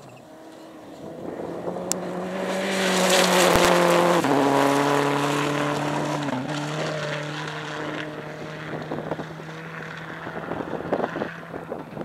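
Rally car engine at high revs on a gravel stage, growing louder as it approaches and loudest about three to four seconds in. The pitch drops as it passes and dips briefly again about six seconds in. It then fades as the car drives away, with gravel noise from the tyres around the pass.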